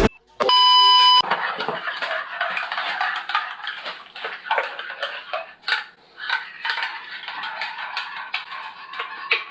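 A single electronic beep lasting about a second, from a kitchen appliance, then irregular clinking and clattering of a mug and teaspoon as coffee is made.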